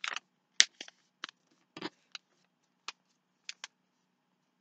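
A sheet of paper being folded and creased by hand: about a dozen short, irregular crackles and rustles, the loudest about half a second in, stopping about three and a half seconds in.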